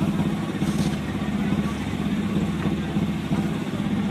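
Engine of an air compressor running steadily with a rapid, even pulse while it drives compressed air down a borewell to flush it out.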